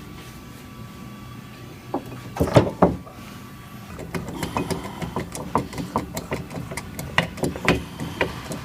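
Metal knocks on a vehicle frame rail during straightening, the loudest near the middle, then a run of quick sharp clicks and taps, several a second. A steady low hum runs underneath.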